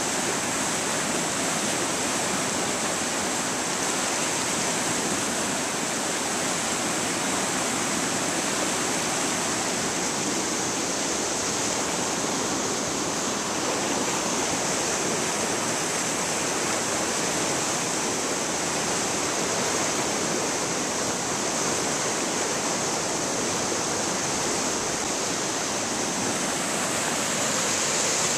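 Rain-swollen river in flood, rushing over rapids: a steady, unbroken wash of white water.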